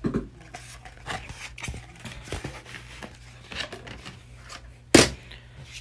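Handling noise on a craft desk: scattered rustles and small clicks of a vinyl sheet and crafting tools being moved, with one sharp knock about five seconds in.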